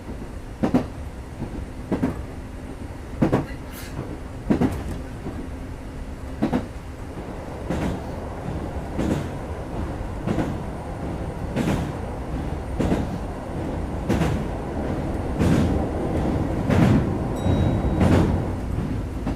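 Kintetsu 2430 series electric train heard from inside the car, running along the line with a steady rumble. The wheels clack over rail joints about once every 1.3 s, and the rumble grows louder near the end.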